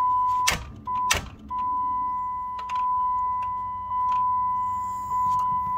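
A steady high-pitched electronic tone, cut off twice in the first second and a half and then held, with scattered light clicks and a low hum under it. It sounds while the key is worked on a 6.1 Hemi that does not start.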